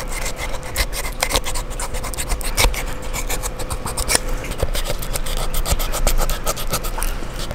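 Fillet knife cutting and scraping through the hard, scaly skin around a black grouper's gill plate to free the cheek meat: a steady run of quick scratchy clicks and rasps.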